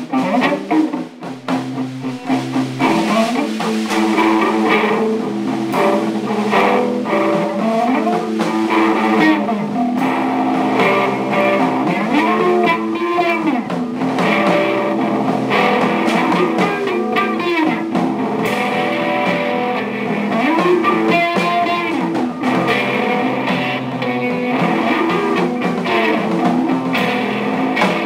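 Rock band playing an instrumental passage: guitar with notes bending up and down over a steady drum kit.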